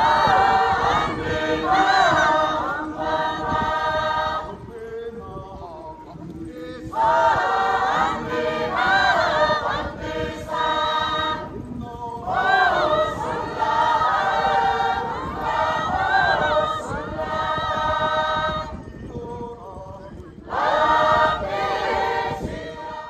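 A group of Bunun men chanting a ritual song together, unaccompanied, in about four sung phrases separated by short pauses.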